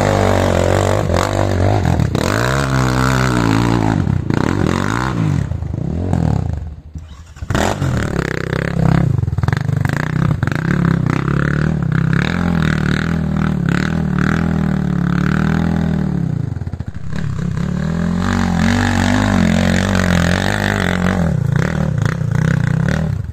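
Enduro dirt bike engine revving hard and unevenly under load on a steep muddy hill climb. The revs rise and fall, dropping briefly about a third of the way through and again near three quarters before picking up.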